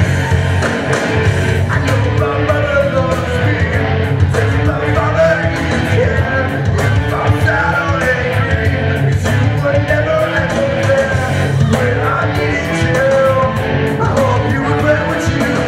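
A man singing karaoke over a loud rock backing track. His voice glides between long held notes above a steady beat.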